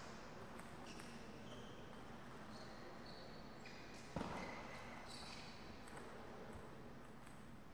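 A single sharp knock about four seconds in, with a short ringing tail in a large hall, over a steady low hum. A few brief high squeaks of sports shoes on the court floor.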